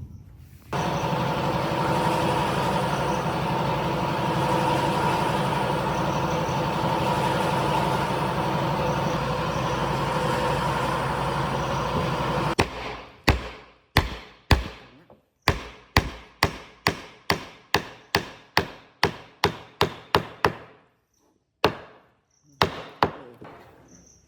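A power tool runs steadily with a whining tone for about twelve seconds, then stops abruptly. Then come sharp knocks on wood, about two a second, with a short gap before the last few.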